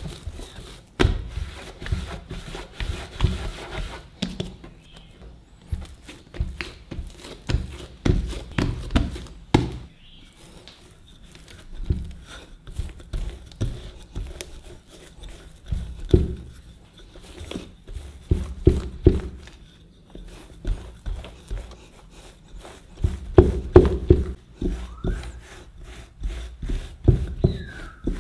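Hands pressing and rounding a ball of bread dough on a wooden tabletop, then a wooden rolling pin rolling the dough out on the wood. The strokes come in runs with short pauses, each a low rubbing rumble with soft knocks.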